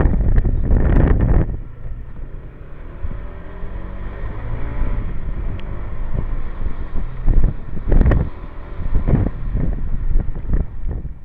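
Motor scooter engine running at low speed, its pitch rising and falling as the rider eases off and on the throttle, with loud gusts of wind buffeting the microphone in the first second and a half and again about eight seconds in.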